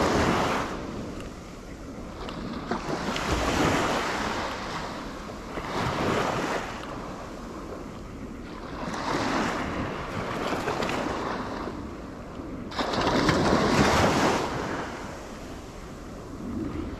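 Sea waves washing in, swelling and falling every three seconds or so, with the biggest surge about three-quarters of the way through. Wind buffets the microphone.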